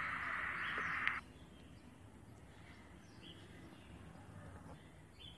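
Dense chorus of birds chattering, cutting off abruptly about a second in, followed by a faint background hiss.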